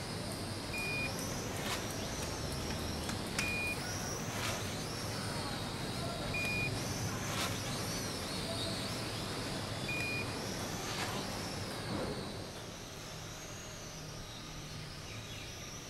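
XBM33 quadcopter drone flying, its motors and propellers giving a high whine that rises and falls as it manoeuvres, growing fainter about twelve seconds in. Four short high beeps sound about three seconds apart.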